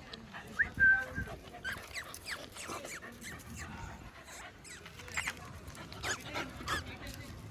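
A dog gives a short high whine about a second in, followed by a run of short clicks and smacks.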